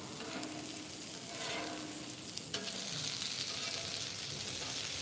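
Chicken pieces, peas, carrots and jalapeno slices sizzling steadily in butter and oil on a hot flat-top griddle. A metal spatula knocks once on the griddle about two and a half seconds in.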